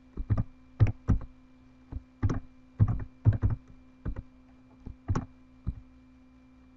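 Typing on a computer keyboard: a run of separate keystrokes at an uneven pace, stopping about a second before the end.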